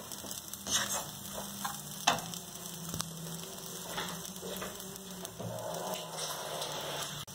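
Rice, onion and spices frying quietly in a non-stick kadai, with a few scrapes and taps of a wooden spatula against the pan.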